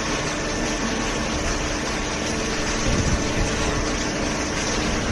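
Hydraulic power unit of a semi-automatic carton baler running steadily: an even mechanical hum with a few held tones over a wash of noise.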